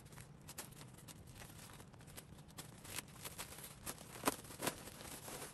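Plastic packaging rustling and crinkling as bagged clothes are handled, in irregular small crackles, with a couple of sharper ones a little over four seconds in.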